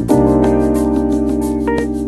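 Background music: a held chord over a quick, steady ticking beat.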